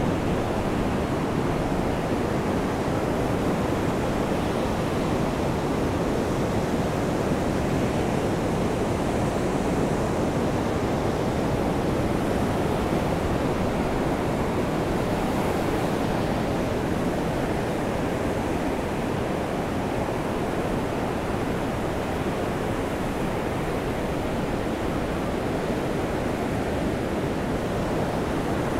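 Sea surf and rain together making a steady, even roar, with no single wave crash or drop standing out.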